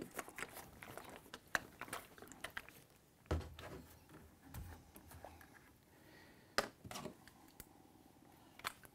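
Faint handling of a plastic gallon water jug: a run of light plastic clicks and crinkles, a heavier thump about three seconds in as the jug is set down, then the screw cap twisted off and a few separate sharp plastic clicks.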